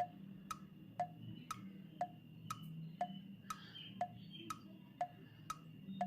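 Clock ticking in a steady tick-tock, about two ticks a second, each tick alternating between a lower and a higher pitch.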